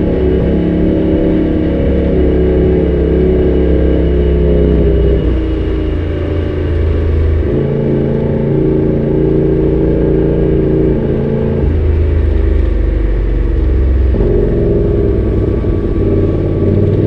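Side-by-side UTV engine running under changing throttle while driving, its pitch shifting down and back up several times.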